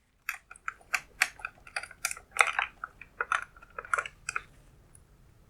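A quick, irregular run of light clicks and taps, like small hard objects being handled, stopping after about four and a half seconds.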